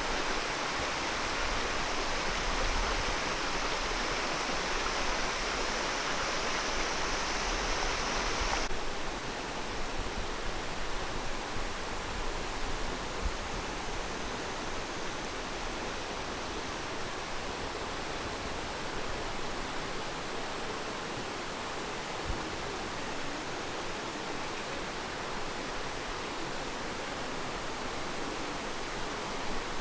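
Steady rush of water. About nine seconds in it cuts suddenly to a quieter, duller rush.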